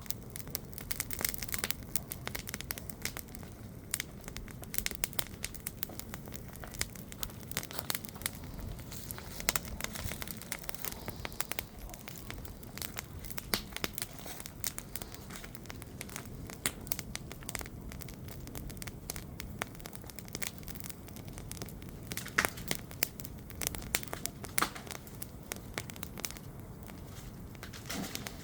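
Wood campfire crackling: a dense, irregular run of sharp snaps and crackles, with a few louder snaps standing out near the end.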